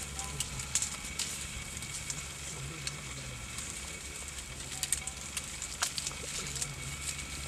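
Leaves and twigs of a bush crackling and snapping as a young African elephant browses, its trunk pulling at the branches, with scattered sharp clicks over a low steady hum.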